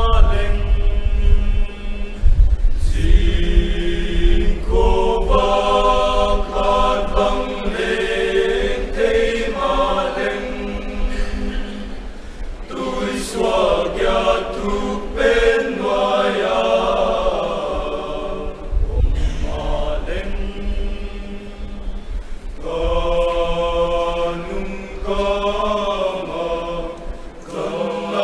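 Mixed choir of men's and women's voices singing a choral song together, in long phrases with short breaks between them.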